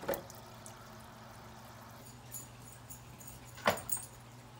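Aquarium stones and decorations being lifted out of the tank water and set down in a plastic bucket: a knock at the start, faint drips and clinks, then a sharper clunk and a second smaller knock near the end, over a low steady hum.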